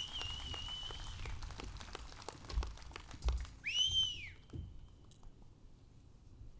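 Two celebratory whistles from the audience, the first rising onto a held note for about a second, the second about three and a half seconds in rising and falling, over faint scattered clapping that dies away.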